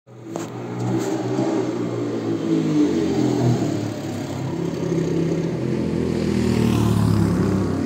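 Motorcycle engine running hard and revving, its pitch rising and falling, fading in over the first second.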